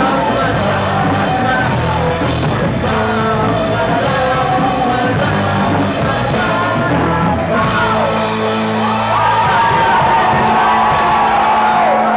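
A rock band playing live with singing, the vocal line turning into a long, wavering held note in the last few seconds.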